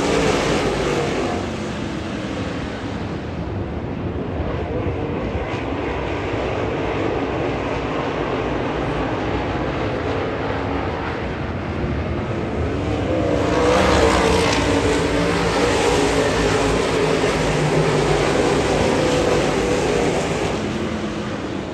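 Dirt late model race cars running on a dirt oval, a steady engine drone that swells as cars come closer about thirteen seconds in and eases off again near the end.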